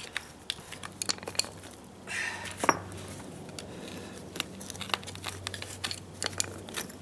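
Irregular clicks, scrapes and knocks of a screwdriver prying and scraping at concrete brick pavers and the grit in their joints, with the sharpest knock about two and a half seconds in. A steady low hum runs underneath.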